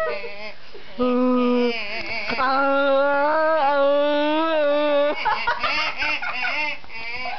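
A person's voice making silly non-word noises: a short steady held tone, then a long wavering held tone, then from about five seconds in quick, broken sounds jumping up and down in pitch.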